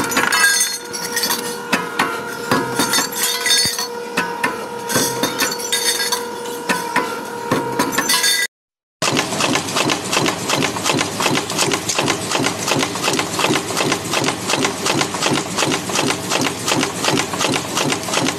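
Metal clanking and clinking over a steady machine hum from a metal-forming press. After a short break, a punch press stamps parts out of sheet metal strip with a fast, even rhythm of sharp strokes, several a second.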